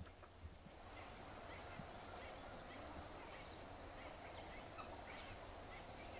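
Faint outdoor ambience: distant poultry calling, with scattered short high bird chirps.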